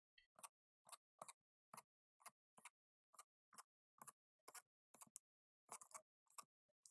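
Faint, sharp clicks, irregular at about two or three a second, from screws being driven into a laptop's base with a small electric screwdriver.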